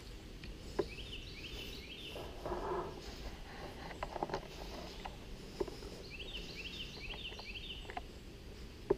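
A bird singing twice, each a quick run of rising notes, with a few sharp clicks and a short rustle in between.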